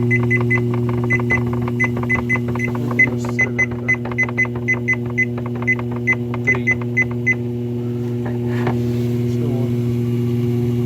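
Treadmill drive motor running with a steady hum. Over it, the treadmill's control console gives a quick, uneven series of short high beeps, about two dozen over the first seven seconds, as its buttons are pressed.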